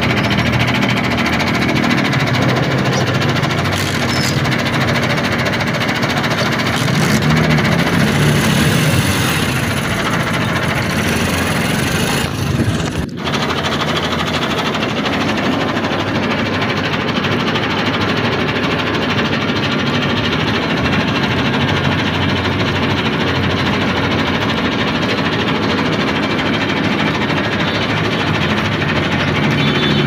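A steady engine sound with a rumbling, knocking running note, like heavy machinery, running continuously with a brief break about 13 seconds in.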